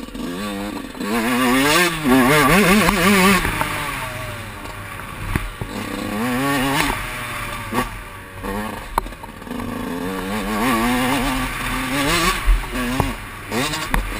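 Motocross dirt bike engine heard on board, revving up hard and dropping back again and again as the bike accelerates, shifts and brakes around the track. A few sharp knocks come through.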